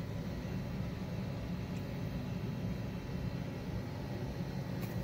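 Steady low hum of background machine noise, even throughout, with no distinct knocks or clicks.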